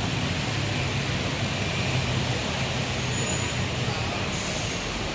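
Diesel engine of a coach bus running as the bus creeps forward at low speed, with a short hiss of air about four seconds in.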